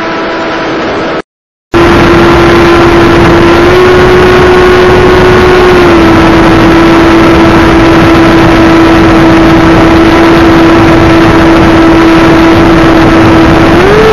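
Electric motor and propeller of an FPV model airplane heard from onboard: a loud, steady buzzing drone over rushing wind. Its pitch steps slightly up and down a few times with the throttle. The sound drops out completely for about half a second just over a second in, then returns.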